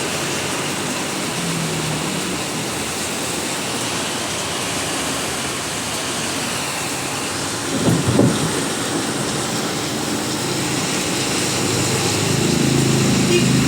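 Steady rain falling in a continuous hiss. About eight seconds in there is a brief low thump, and near the end a vehicle engine hum grows louder.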